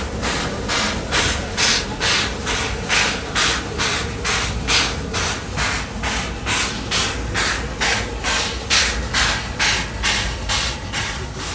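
Shay geared steam locomotive with three cylinders chuffing steadily, its hissing exhaust beats coming about three a second over the rumble of the train.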